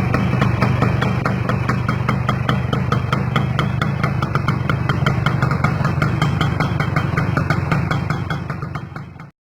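Kawasaki GTO motorcycle's two-stroke single-cylinder engine idling steadily. It fades near the end and then cuts off abruptly.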